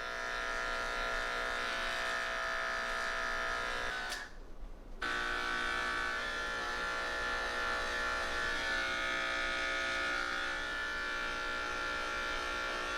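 Electric pet grooming clippers buzzing steadily on a cat's coat. The clippers stop briefly about four seconds in, then start again and run on.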